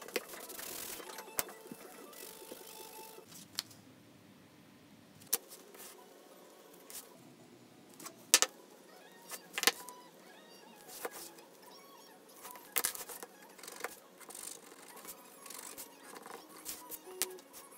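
Irregular sharp clicks and metallic taps of leatherworking tools being handled and set down on the bench, the loudest about eight seconds in, over quiet background music.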